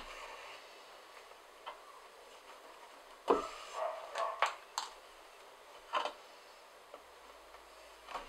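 Hand saddle-stitching leather: thread drawn through the punched stitching holes and the needles handled, heard as a cluster of short pulls and clicks about three seconds in, one with a falling squeak, and another brief pair around six seconds.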